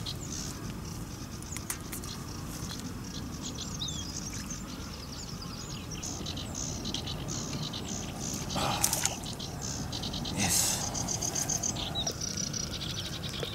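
Several songbirds chirping and singing over a steady low rumble, with two brief louder rushes of noise about two-thirds of the way through.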